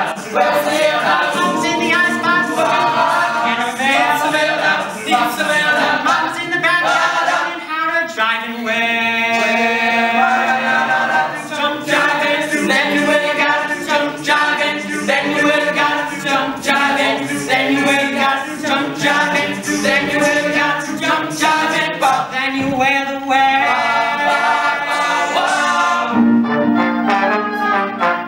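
Male a cappella group singing a swing song: a bass soloist over backing voices, with vocal percussion keeping a steady beat. About two seconds before the end, horns, including a trombone, come in on held notes.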